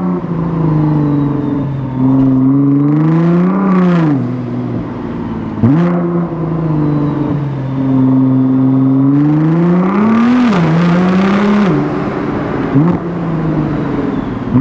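Nissan GT-R R35's twin-turbo VR38 V6 heard at the exhaust, which has a non-catted midpipe. The engine pulls up through the revs and lifts off several times, with sudden sharp jumps in revs about five seconds in and again near the end, and a rising hiss as it pulls hardest about ten seconds in.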